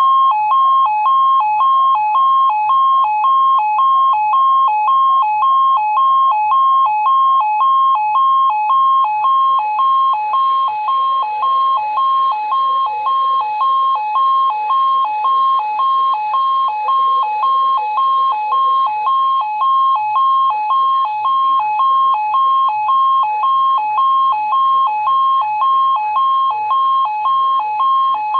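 Weather alert radio's alarm going off on activation: a loud electronic beep alternating rapidly between two pitches, about two cycles a second, steady throughout.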